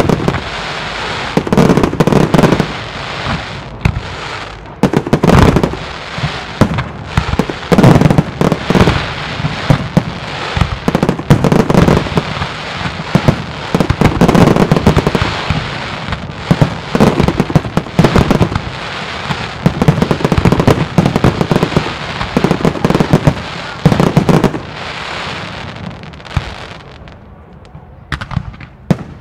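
Aerial fireworks display: a rapid, continuous barrage of shell bursts and bangs mixed with crackle, thinning out near the end before a few more sharp reports.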